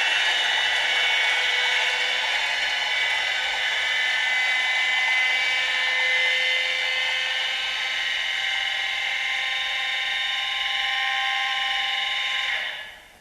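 Sound decoder in an H0 model diesel locomotive playing running diesel-engine sound through its small onboard loudspeaker: a steady, thin, whining sound without bass, fading out near the end.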